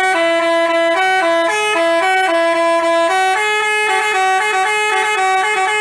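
Basuri telolet bus horn playing a quick tune of stepped notes, two notes sounding together, without a break.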